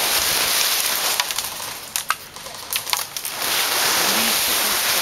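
Crunching and rustling, with a handful of sharp snaps or clicks in the middle.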